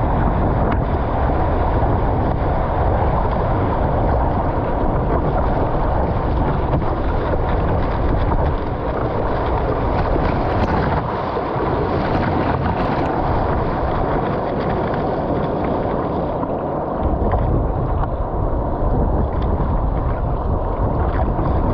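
Wind buffeting the microphone over water rushing and splashing along an Epic V7 surfski's hull as it is paddled through breaking waves. The deep wind rumble drops away for several seconds around the middle while the boat surfs a wave in a hiss of spray, then returns.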